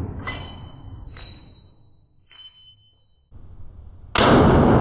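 The tail of an unsuppressed AR-15 .223 rifle shot fired through a muzzle brake dies away, with a few short, light metallic clinks like spent brass landing. About four seconds in, another loud rifle shot cracks out.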